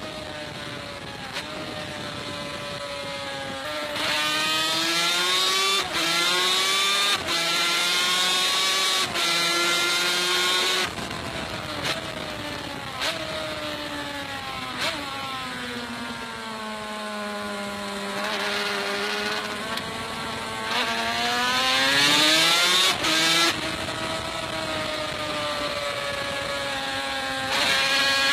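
Two-stroke racing motorcycle engine at high revs on a track, the pitch climbing through the gears and breaking sharply at each upshift. Through the middle the revs fall away as it slows, then climb again with another shift before running steadier near the end.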